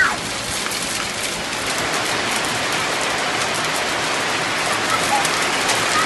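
Hail falling with rain: a steady dense hiss, peppered with many small sharp ticks of hailstones striking surfaces.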